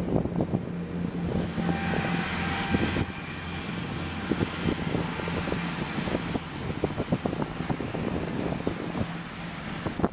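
Chiltern Railways diesel multiple unit running its underfloor diesel engines with a steady low drone as it moves out along the far track. A brief hiss comes in about a second and a half in, and wind gusts thump on the microphone throughout.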